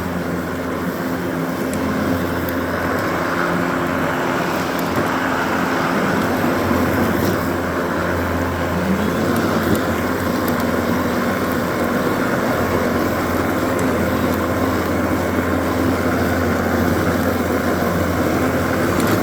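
Battery-powered electric lawn mower running under load, its motor and spinning blade making a steady hum over a rushing noise.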